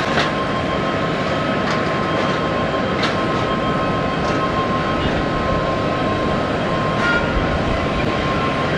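Jet engine roar from an Airbus A321neo's Pratt & Whitney PW1100G geared turbofans at takeoff power during the takeoff roll. The roar is steady and dense, with a steady high tone running through it.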